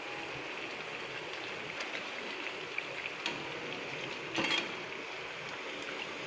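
Oil sizzling and crackling steadily as bottle gourd vadai (gram-flour fritters) deep-fry in a pan, with a slotted ladle moving through the oil. A brief louder burst of crackling about four and a half seconds in.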